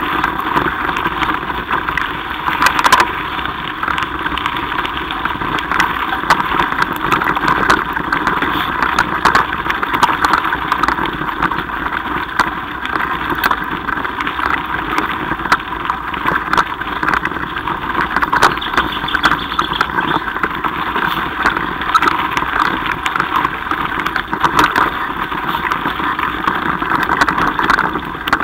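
Mountain bike rolling fast over a loose gravel track: a steady rumble of tyres on stones and wind on the microphone, with frequent small clicks and knocks from the rough surface and a louder knock about three seconds in.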